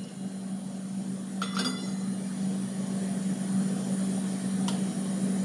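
A metal 1-cup measure clinking a couple of times as pasta is scooped into it with a serving spoon, with a steady low hum under it and one more light click near the end.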